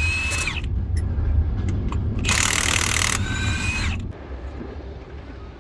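Milwaukee cordless impact wrench, rated at 2800 N·m, hammering on seized engine fasteners in two bursts. The first ends about half a second in, the second comes a couple of seconds later. Each burst ends in a whine that winds down as the tool spins to a stop.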